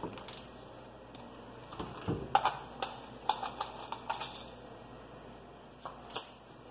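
Light clicks and knocks of kitchen things being handled at a gas stove, in a quick run about two seconds in, then two more clicks near the end as a burner is turned on.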